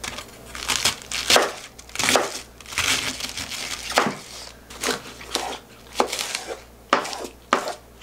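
Chef's knife cutting a head of cabbage into chunks on a wooden cutting board: crisp crunching cuts through the leaves, with the blade knocking on the board, at irregular intervals.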